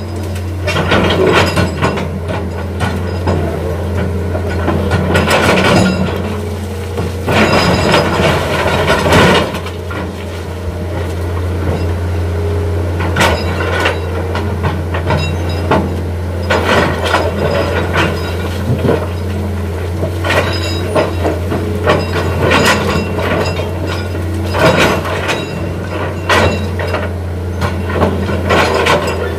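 Heavy diesel machinery running steadily during excavator loading of sand, with repeated knocks, scrapes and rattles of sand and stones as the bucket digs and dumps into a truck.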